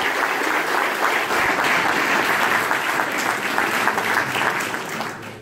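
An audience applauding, many hands clapping at once, dying away near the end.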